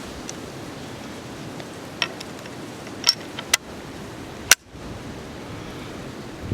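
A few short, sharp clicks over a steady background hiss, about two to four seconds in. The loudest comes about four and a half seconds in and is followed by a brief dropout.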